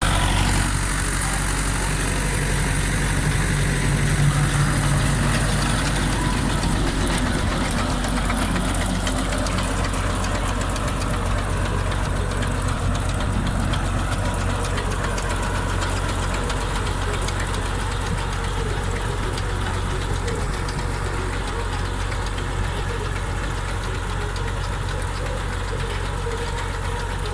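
Engine running steadily with a low hum, typical of a farm tractor working a potato harvest; it swells slightly a few seconds in.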